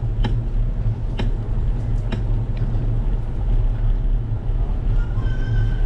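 Steady low rumble of wind buffeting and road vibration on a bicycle-mounted action camera while riding, with four sharp clicks in the first two seconds and a brief high-pitched tone near the end.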